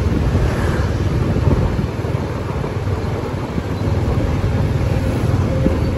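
Street traffic of motor scooters running past, a steady low rumble, with wind buffeting the microphone.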